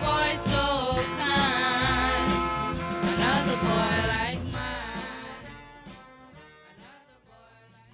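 A song with singing over instruments that fades out over the last few seconds.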